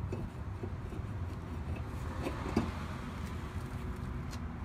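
Rusty front brake rotor being worked off the wheel-hub studs, with a short metallic scrape and clunk about halfway through. Under it runs a steady low background rumble.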